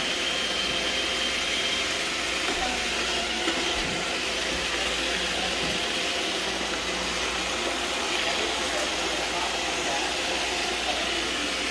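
Roomba robot vacuum running: a steady hum with a few faint steady pitched lines.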